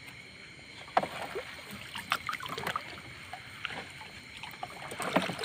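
Wet sardine gill net hauled by hand over a small boat's gunwale: irregular short clicks, rustles and splashes as the mesh and caught sardines come out of the water.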